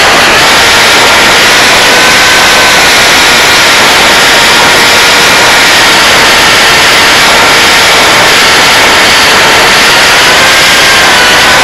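Onboard audio from a Hardcore 44 FPV flying wing in flight: a loud, steady rush of wind over the camera microphone with the thin whine of its Cobra 2814 brushless motor and APC 6x5.5 propeller underneath, the whine shifting in pitch with throttle and rising near the end.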